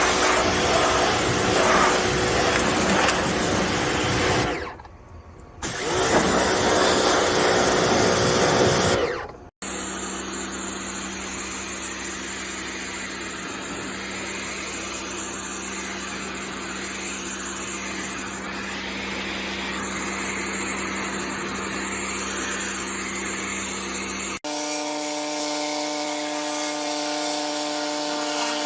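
Pressure washers running and spraying, in several short clips cut together: first a loud even hiss of spray, then after a brief drop a steadier machine hum with a low held tone, then a pitched motor hum.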